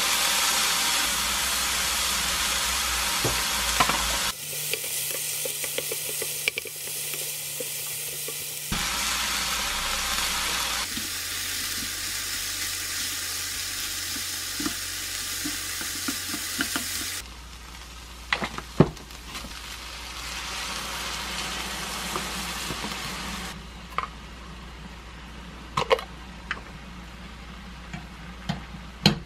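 Diced pork, onion and zucchini sizzling in a nonstick frying pan while being stirred with a wooden spatula, with sharp knocks and scrapes of the spatula on the pan. The sizzle is loudest at first and grows quieter in the later part.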